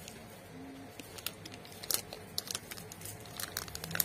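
Scattered light clicks and crinkling of plastic packaging over faint steady background hum.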